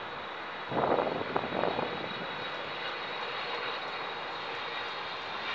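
Boeing 777-200LR on approach, its GE90 turbofan engines heard as a steady rushing with a high whine. About a second in, a louder rush of noise lasts for a second or so.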